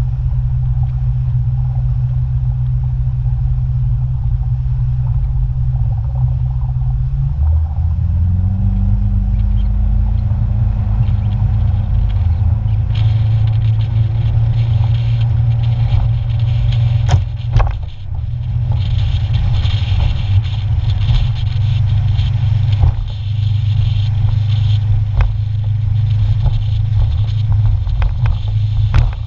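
Motorboat engine running under way, throttled up about a quarter of the way in with its pitch rising, then running steadily at speed. A rushing hiss of wind and water grows from about halfway, with a few sharp knocks.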